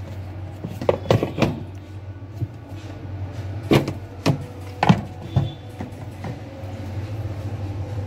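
Scattered light clicks and knocks of plastic and rubber parts being handled as the rubber drain seal is worked off the plastic drain valve plunger of a semi-automatic washing machine, over a steady low hum.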